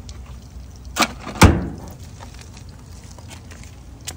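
Two metal clanks about half a second apart, the second louder with a short ringing tail: a metal kitchen-hood baffle filter being set down on the ground.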